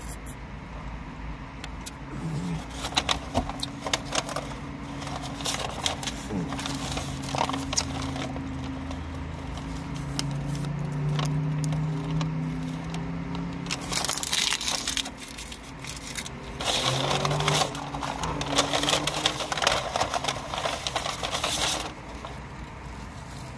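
Paper receipt and fast-food bags and wrappers being handled: rustling and crinkling with scattered clicks and crackles, loudest in two spells in the second half. A low steady hum sounds in the middle.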